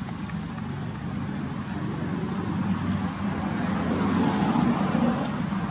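A motor vehicle's engine running steadily, getting louder about two thirds of the way through as it passes.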